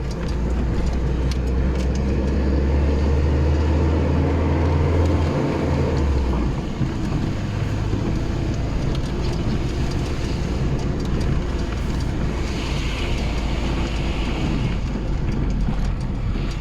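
A GAZelle Next van driving, heard from inside the cab: a steady low engine drone with road noise. The drone drops to a lower note about five or six seconds in, and a hiss rises for a few seconds near three quarters of the way through.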